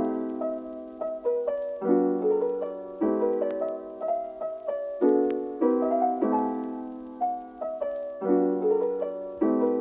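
Background piano music: chords struck about every second, each ringing and fading.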